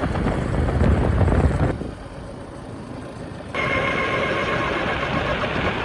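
Motorbike riding on the road, its engine and wind rumbling on the microphone. The sound drops off abruptly, then a steady hum with a faint high whine comes back in about three and a half seconds in.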